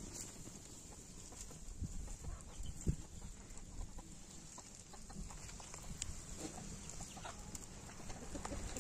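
Chickens clucking faintly, with a few scattered clicks and knocks, the loudest about three seconds in.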